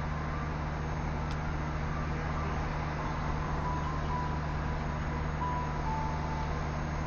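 Pakistan Railways PHA-20 diesel locomotive engine running with a steady low drone as it slowly approaches. Short, high whistle-like chirps come and go over it from about the middle on.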